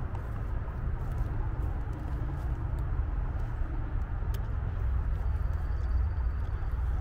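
Steady low rumble of city traffic, growing a little louder in the second half.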